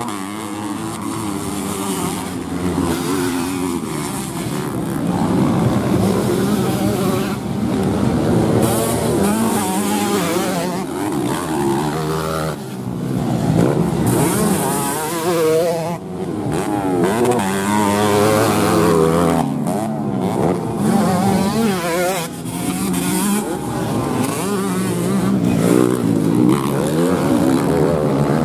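Dirt bike engines racing on a dirt track, revving up and down continuously as the bikes accelerate, shift and slow for corners and jumps.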